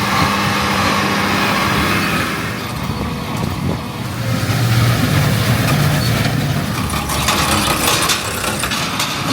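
Tractor engine running steadily while pulling field machinery, its pitch and loudness shifting, with a run of short knocks and clatter in the second half.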